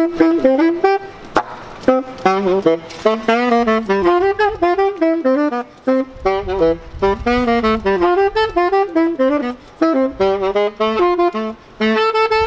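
Solo saxophone playing a single melodic line, note by note, in short phrases with brief pauses between them.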